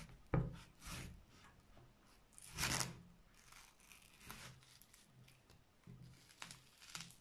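Kitchen knife slicing through the rind of a small, ripe watermelon: quiet tearing, crunching cuts, with a sharp knock just after the start and a louder crunch a little under three seconds in.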